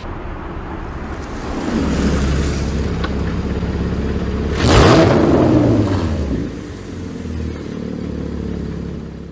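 Porsche Cayman GT4 (981) with a 4.5-litre flat-six, exhaust valves open, being revved while standing. The engine note builds from about a second and a half in, peaks sharply around the middle, falls away in pitch, then rises again more gently before the end.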